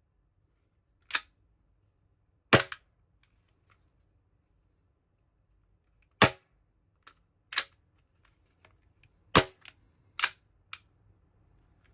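VFC Glock 19X gas blowback airsoft pistol firing single shots: six sharp pops at uneven gaps of one to four seconds, with a few fainter clicks in between.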